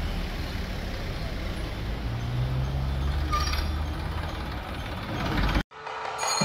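Road traffic: motorcycle and scooter engines passing, a steady low hum with one engine swelling louder in the middle. It cuts off suddenly near the end.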